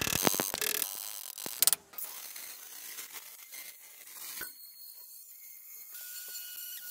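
Quick-cut metalworking sounds on a steel anvil: a rapid run of sharp clicks and knocks in the first two seconds, then quieter grinding from an abrasive disc on a power tool, ending in a faint steady whine.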